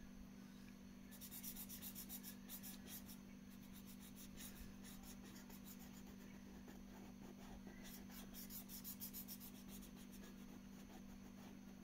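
Felt-tip sketch pen scribbling quickly back and forth on paper while colouring in a shape: faint rapid scratchy strokes in two spells, over a low steady hum.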